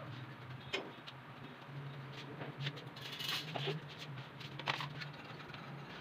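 A wire fan guard being handled and worked with a hand tool: light metallic clinks and taps, and a short scraping hiss about three seconds in, over a steady low hum.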